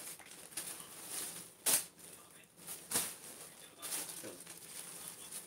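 Plastic packaging of a packed garment rustling and crinkling as it is handled and opened, with a few sharper crackles, the loudest about a third of the way in and just past halfway.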